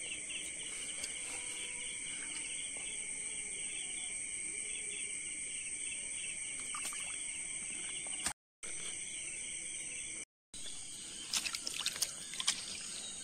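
Night insects chirping: a steady high trill with a rhythmic pulsing chirp under it, typical of crickets. Near the end come a few sharp clicks and knocks as the line and the hooked eel are handled at the water's edge.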